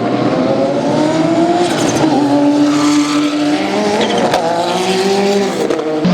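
Porsche 962 race car's turbocharged flat-six engine running hard at speed, its pitch climbing twice through the gears. Near the end the pitch drops suddenly, with a short crackle as the car lifts or shifts.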